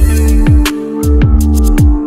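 Electronic background music with a steady beat: deep bass drum hits that drop in pitch, about two a second, under a held synth tone and crisp percussion.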